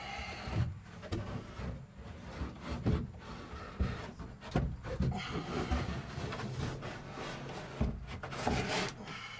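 Plywood cabinet parts being handled, with irregular knocks and scraping of wood on wood; a denser scrape comes near the end.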